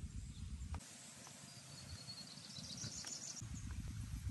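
Faint outdoor ambience: a low rumble with scattered faint bird chirps. The rumble drops away for a couple of seconds about a second in, and the chirps are clearest near the middle.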